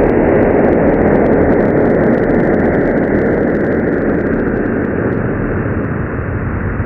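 Sonification of space data: a steady, dense rushing noise with a low rumble, without pitch or rhythm.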